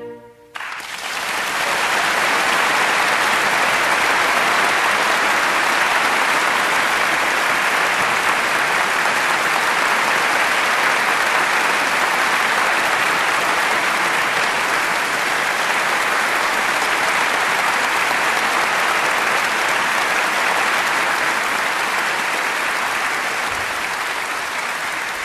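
Concert audience applauding at the end of an orchestral aria performance. The applause breaks out about half a second in, builds within a second or so, then holds steady and eases a little near the end.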